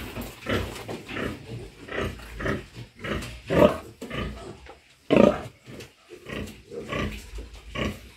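Heavily pregnant sow in a farrowing crate grunting over and over, short grunts about every half second, with two louder ones about three and a half and five seconds in.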